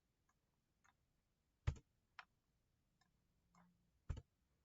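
Sparse clicks from operating a computer: two sharp clicks, one under two seconds in and one near the end, with a few fainter ticks between.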